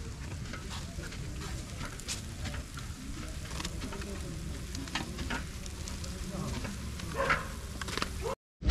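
Rasagullas cooking in a pot of hot sugar syrup: a steady bubbling sizzle with a ladle stirring and knocking against the pot now and then. The sound cuts off abruptly near the end.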